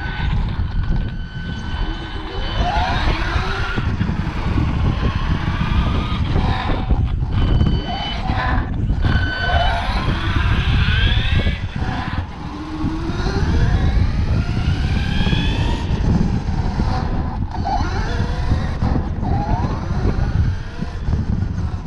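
Radio-controlled car heard from a camera mounted on it: the drivetrain whines, rising and falling in pitch again and again as it speeds up and slows. Under the whine is a heavy, constant rumble of the tyres on the rough tiled surface.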